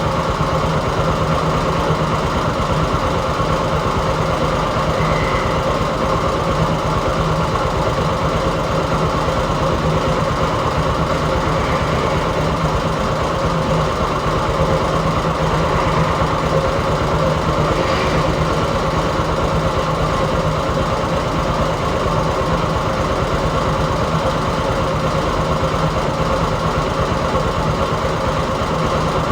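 Heavy construction machinery's engine running steadily at idle, an even, unchanging drone.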